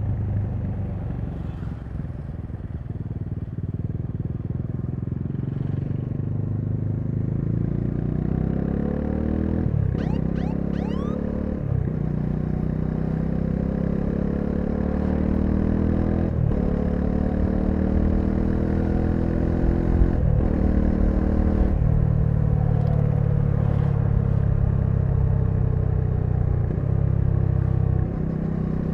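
Bajaj Dominar 400's single-cylinder engine under a riding load, pulling up through the gears. The pitch climbs and drops sharply at each of about four upshifts, then settles into a steady cruise for the last few seconds.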